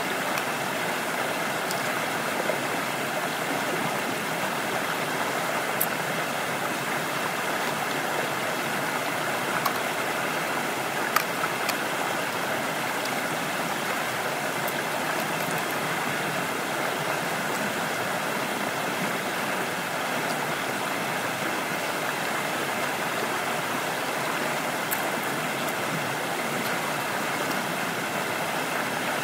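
Stream water running steadily over rocks, with a few faint clicks now and then.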